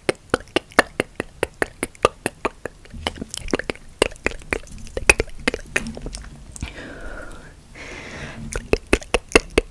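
Close-miked ASMR mouth clicks: rapid, sharp tongue clicks, several a second, broken by a breathy pause about seven seconds in before the clicking resumes.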